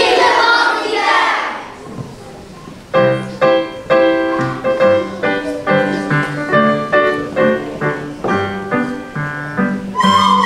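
A short burst of children's voices, then from about three seconds in a piano plays an introduction in separate notes with a bass line. Near the end a group of recorders comes in on a steady held note.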